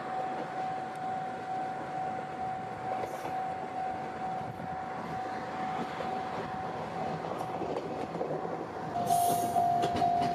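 Moka 14 diesel railcar approaching and rolling past, with a steady high-pitched whine over the rumble of the car. About nine seconds in a short hiss and some clicks rise above it.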